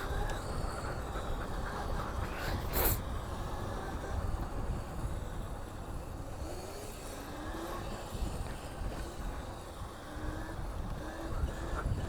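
Modded Razor electric bike being ridden along: a steady rumble of wind and road noise, with a sharp click about three seconds in and a few short rising whines later on.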